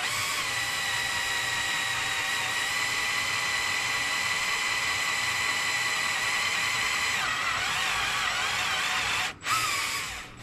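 Electric drill running a long 1/8-inch bit through lead squib bullets stuck in a .38 Special revolver barrel, drilling them out to relieve the pressure so they can be knocked out. The steady whine wavers unevenly after about seven seconds, cuts out sharply about nine seconds in, then briefly returns and winds down.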